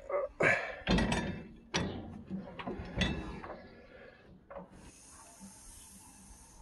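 Irregular knocks and scrapes of handling on the old tractor's engine, then a steady high hiss for about two seconds near the end.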